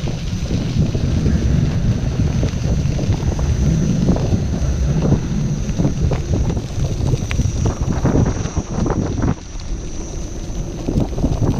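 Wind buffeting the microphone over the rolling rumble of a KingSong KS14 electric unicycle's tyre on a gravel path, with many small clicks and knocks. The rumble drops about nine seconds in.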